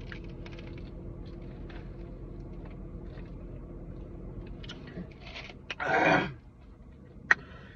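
Quiet eating sounds with small mouth ticks over a low steady hum. About six seconds in comes a loud, short, breathy burst like a cough or sharp exhale, and a sharp click follows just after seven seconds.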